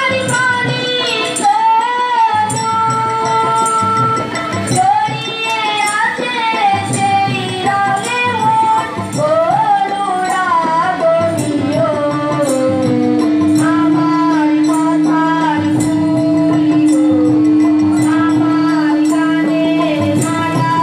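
Live South Asian music: a woman sings a melody to harmonium, tabla and a small jingling hand percussion keeping a steady beat, with a long held note through the second half.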